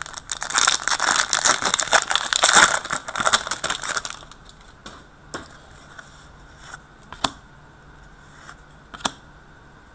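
A trading-card pack wrapper being torn open and crinkled for about four seconds. Then a few separate clicks as the cards are handled.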